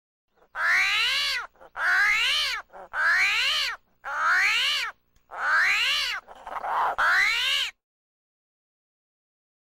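Screaming hairy armadillo (piche llorón) crying: six drawn-out squealing calls, each rising and then falling in pitch, about one a second, with a short rougher sound between the last two.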